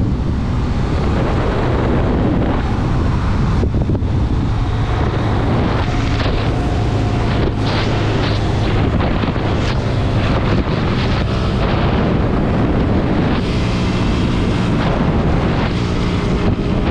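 Suzuki GS150 motorcycle's single-cylinder engine running steadily at road speed, under heavy wind rush on the microphone.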